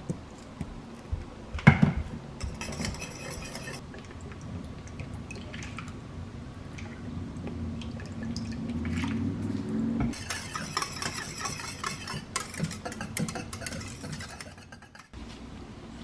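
Wire whisk stirring a sauce in a stainless steel saucepan, scraping and clinking against the metal, with a sharp clank a little under two seconds in. Liquid is tipped in from a metal measuring spoon and drips into the pot.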